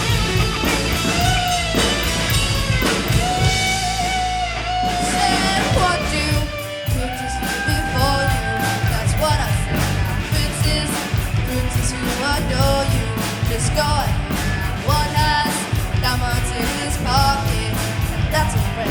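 Rock band playing live: electric guitar lines held and bent over bass and a steady drum beat.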